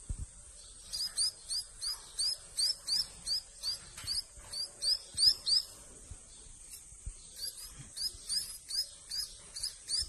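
Nestling songbirds, which the keeper takes for munia-type finches, giving begging chirps while gaping at a water syringe: a fast run of short, high, upward-curving cheeps, about three a second, that starts about a second in and breaks off briefly past the middle before resuming.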